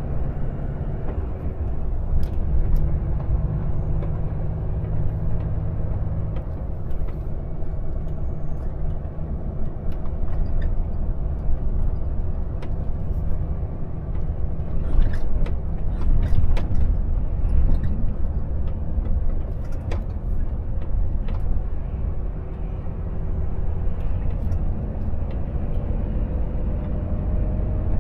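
Volvo FH 460 truck heard from inside the cab: the 13-litre six-cylinder diesel running under steady driving, with road noise beneath it. The engine's pitch shifts a few times and rises near the end, and a few sharp clicks come in the middle.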